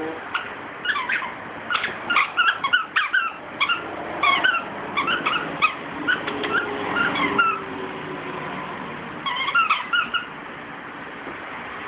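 A pit bull chewing a plush squeaky toy, the squeaker giving quick runs of short, high squeaks, with a short lull and another flurry toward the end.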